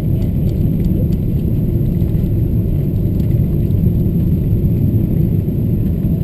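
Steady low rumble of engine and airflow noise inside the cabin of a Boeing 777-200ER on final approach, with the flaps extended.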